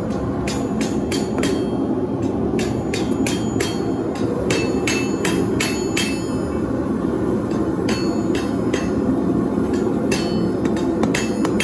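Hand hammer striking hot steel from a farrier's file on an anvil, about three ringing blows a second in runs with brief pauses. A steady rushing noise runs underneath.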